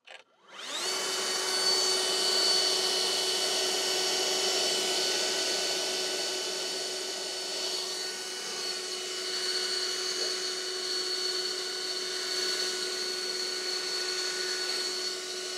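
Greenworks brushless cordless leaf blower spinning up about a second in, then running steadily at full power: a constant high whine over the hiss of rushing air, blowing at the edge of an adhesive-mounted flexible solar panel.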